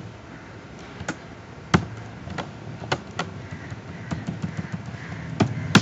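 Irregular clicks and taps of a computer keyboard and mouse, about a dozen strokes with uneven gaps, over a low steady hum. The loudest clicks come just under two seconds in and just before the end.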